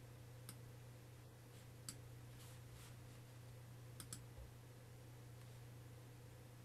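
Near silence: a steady low hum with a few faint, short clicks, two of them close together about four seconds in.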